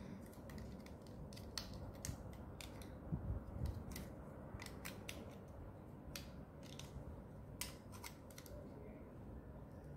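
Lego bricks clicking as they are pressed together and handled: faint, irregular sharp plastic clicks, with a small cluster of clicks and bumps a few seconds in and another near the end.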